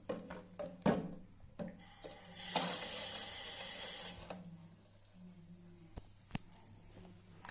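Water pouring steadily for about two seconds, preceded by a few light knocks and followed by two sharp clicks.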